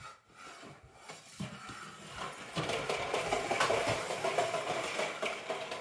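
Two young children making a continuous rattling, clattering racket, which builds up about two seconds in and stays loud.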